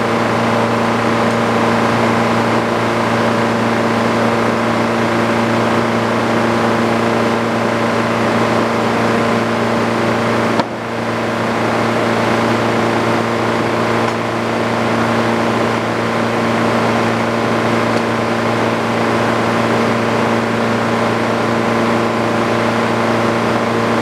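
Sawmill engine running steadily at a constant speed, with a short click and a slight drop in level about ten and a half seconds in.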